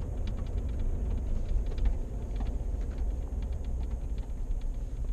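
Steady low rumble of road and engine noise inside a moving vehicle's cabin, with scattered light clicks over it.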